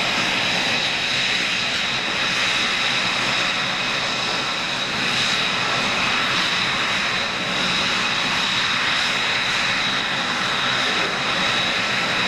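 Steady, high-pitched jet whine over a rushing noise from an F-22 Raptor's auxiliary power unit, a small jet turbine, during a start attempt in which the APU fails to ignite.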